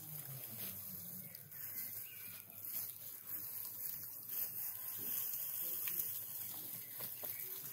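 Dry straw rustling and crackling as armfuls of it are gathered, lifted and carried.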